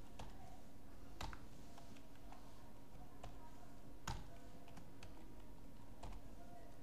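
Computer keyboard keystrokes: a few separate key taps, roughly one a second, over a faint steady hum.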